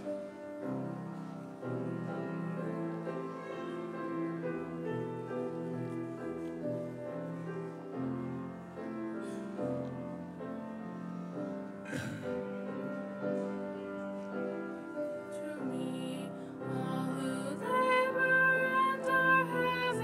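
Keyboard playing a slow hymn introduction in held, sustained chords. A woman's singing voice comes in near the end.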